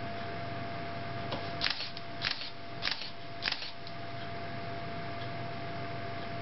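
Canon digital SLR shutter firing four times in quick succession, about two-thirds of a second apart, triggered by an Arduino intervalometer, with a faint small click just before and just after the run. A faint steady high hum lies underneath.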